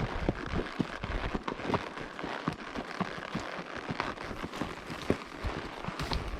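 Irregular crackling and crunching of steps over dry, burnt ground, over a steady rustling noise.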